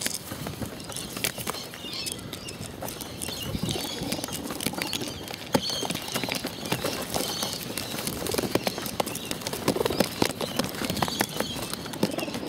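Pigeons pecking seed out of a plastic bottle feeder: a rapid, irregular run of beak clicks and taps against the plastic.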